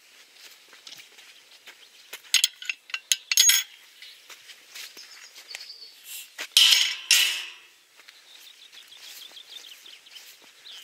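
Galvanised metal gate being worked by hand. Sharp metallic clinks of its latch come between about two and three and a half seconds in, then a louder clang with a brief ring about six and a half seconds in as the gate swings to. Faint footsteps are heard on either side.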